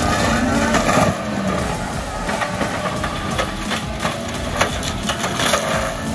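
Loftness Battle Ax forestry mulcher drum on a Case TV620B track loader grinding stump remains and soil, with irregular crunching hits over the loader's diesel engine running under load.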